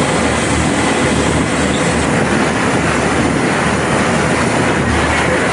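Tour boat's engine running steadily under way, with a loud, even rush of water and wind noise over it.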